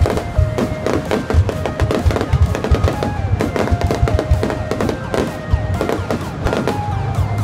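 Dense, continuous fireworks bangs and crackles from an aerial display, mixed with music whose held notes step from pitch to pitch.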